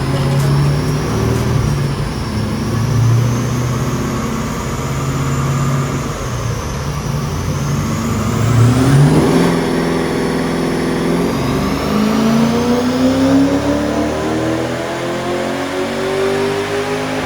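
Holden VX Commodore SS's LS1 V8, breathing through aftermarket headers and an X-Force exhaust, runs at a steady engine speed for several seconds. About nine seconds in it revs up sharply, and from about twelve seconds it pulls hard with the pitch climbing steadily.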